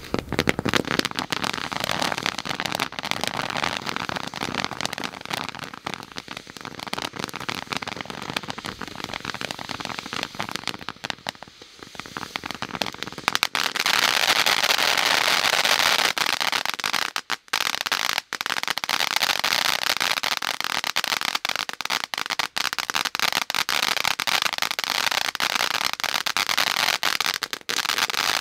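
Crushing Candy ground fountain firework burning, a steady hiss of spraying sparks packed with dense crackling. It dips briefly about 11 seconds in, then comes back louder and denser.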